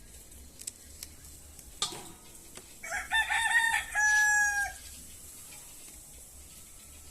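A rooster crowing once, a call of about two seconds that ends on a long held note.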